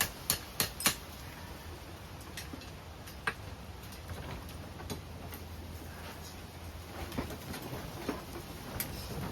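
Hand hammer blows on a hot chain link at the anvil, forge welding it, about three strikes a second that stop about a second in. After them a low steady hum with a few light scattered clicks.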